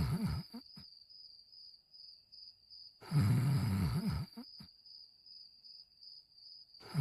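Cartoon dog snoring, voice-acted: long, low, rasping snores about every four seconds, each followed by a short click. A faint, steady high-pitched tone runs underneath.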